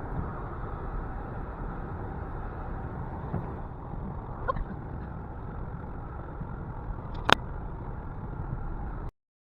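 Steady low rumble of a vehicle driving, with a single sharp click about seven seconds in; the sound cuts off abruptly just before the end.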